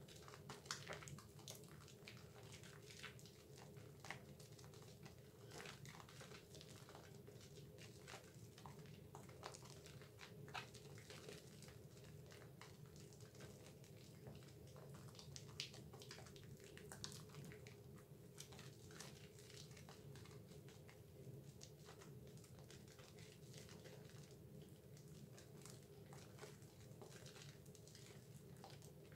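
Faint wet squelching and crackling of thick Dove bar-soap lather being squeezed and rubbed between hands, with many small irregular pops of bursting foam, over a steady low hum.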